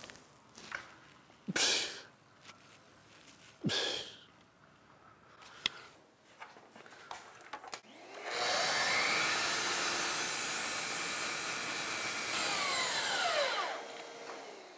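DeWalt FlexVolt cordless miter saw spinning up about eight seconds in, running loudly through a cut in a trim board, then winding down with a falling whine near the end.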